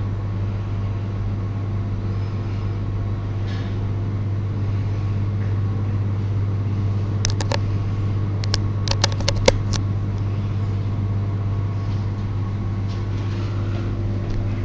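A steady low hum runs throughout, with a cluster of sharp clicks about seven to ten seconds in.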